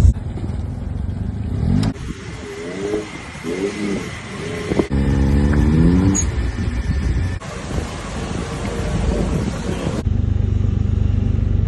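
Car engines accelerating and revving in a series of short, abruptly cut clips, with the engine pitch climbing several times.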